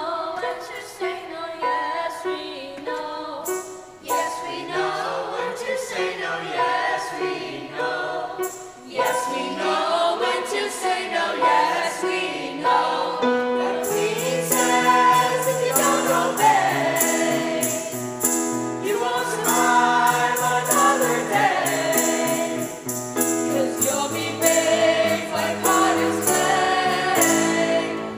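Choir singing a song with instrumental accompaniment; the accompaniment grows fuller, with brighter percussion, about halfway through.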